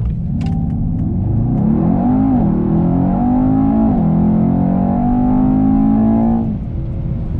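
Mercedes-AMG V8 sedan accelerating hard at full throttle, the engine note rising in pitch, dropping sharply at two quick upshifts and rising again, then falling away near the end as the throttle is lifted.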